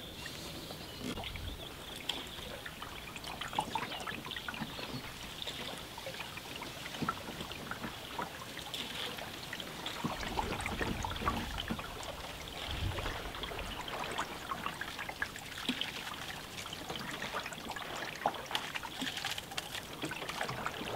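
Canoe paddling: water trickling and dripping off the wooden paddle blade with small splashes and ticks at each stroke, and a few low thumps against the cedar-strip hull.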